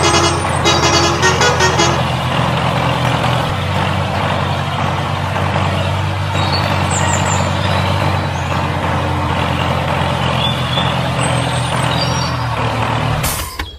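Heavy vehicle engine running steadily at a low, even speed, then cutting off suddenly near the end.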